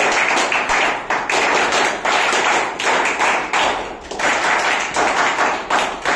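An audience applauding: a dense patter of many hands clapping.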